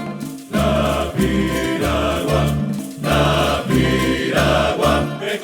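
Instrumental music with a steady, repeating bass line: the opening bars of a Colombian cumbia played by a string ensemble, before the singing comes in.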